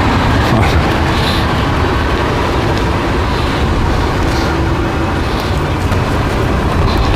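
Wind buffeting the camera's microphone: a loud, steady rumble.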